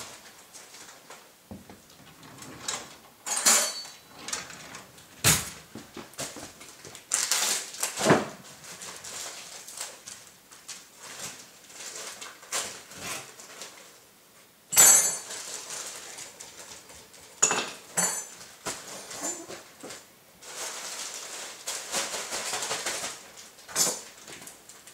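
Kitchen dishes and cutlery being handled as a dog's meal is got ready: irregular knocks and clinks. The loudest is a ringing metal clink about fifteen seconds in, and there is a few seconds of steady hiss later on.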